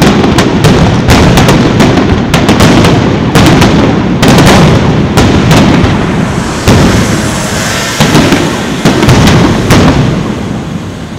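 Aerial firework shells bursting in quick succession: a dense run of sharp bangs and booms over a continuous rumble, thinning out and fading near the end.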